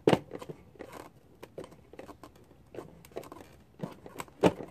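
Irregular clicks, taps and rustling of tools and hands working at a scooter's plastic body panel while its screws are removed, with two sharper knocks, one right at the start and one near the end.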